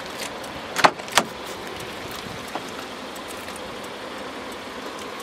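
Driver's door of a 2013 FAW V5 being opened: two sharp clicks about a second in, a third of a second apart, as the outer handle is pulled and the latch releases, over steady background noise.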